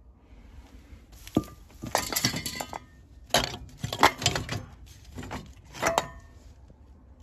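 Metal hand tools and small parts clinking and rattling as they are handled, in several short clattering bursts.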